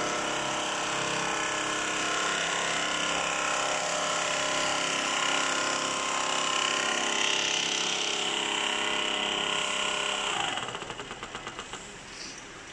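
Computerized gantry sewing machine running at speed, its needle head stitching a seam through filter-bag fabric: a steady mechanical whir with a high whine. About ten seconds in it drops to a quieter, fast pulsing of about six beats a second.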